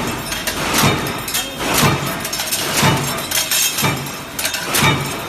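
Automatic punching machine punching rack fixture parts, a sharp clanking strike with a brief ring about once a second.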